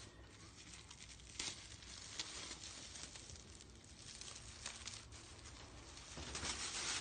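Plastic sheeting and masking paper crinkling and tearing as they are pulled off a freshly painted wheel's tire, with a few short, sharper crackles and the loudest rustling near the end.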